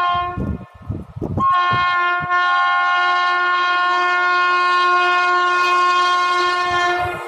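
WAP-7 electric locomotive's multi-tone horn: the tail of one blast, a short break, then one long steady blast of several tones sounding together for about six seconds as the train approaches.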